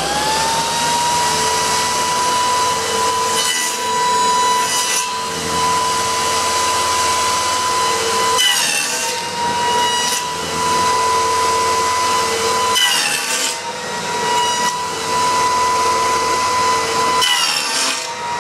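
Bench-mounted power tool spinning up and then running with a steady whine while cutting wood. Its pitch sags three times under load, several seconds apart, as the frame is pushed through.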